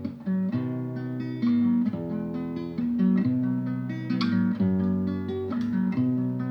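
Instrumental music played on a plucked guitar, notes and chords changing every half second or so.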